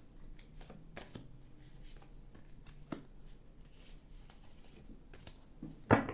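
Tarot cards being shuffled by hand: soft scattered rustles and clicks of the cards, with one louder slap of cards just before the end.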